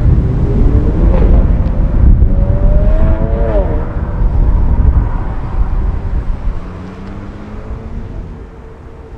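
A car engine with a heavy low rumble, briefly revving up and dropping back twice, about one second and three seconds in. The engine sound then fades steadily away.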